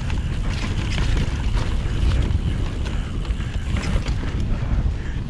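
Wind buffeting the microphone in a steady heavy rumble while a mountain bike rides downhill, with light clicks and rattles from the tyres and bike on the dirt trail.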